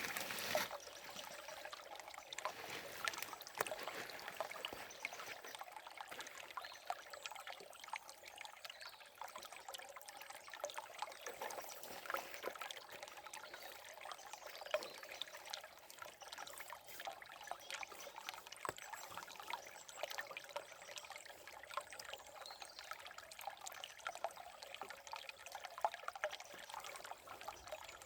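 Forest river running and trickling: a steady wash of flowing water with many small splashes and gurgles.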